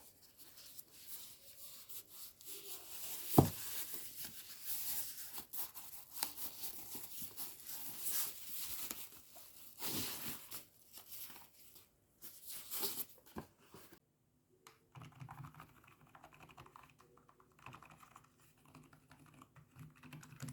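Packaging of a wireless keyboard and mouse set being opened: plastic and cardboard crinkling and tearing, with one sharp knock about three seconds in. In the last six seconds it gives way to quieter light clicking and handling over a faint steady hum.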